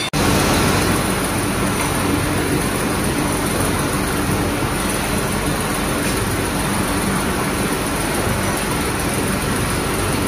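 Steady machinery noise: an even rushing din with a low hum beneath it, holding level throughout.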